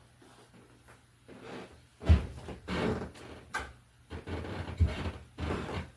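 Household handling noise: after a quiet start, a run of irregular knocks, bumps and rustling begins about two seconds in, with heavier thuds at its start and near the end, as things are moved about, opened and shut.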